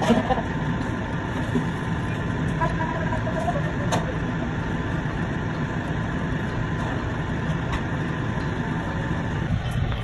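Steady low rumble of storm wind and road traffic on a snow-covered street, with vehicles driving through drifting snow.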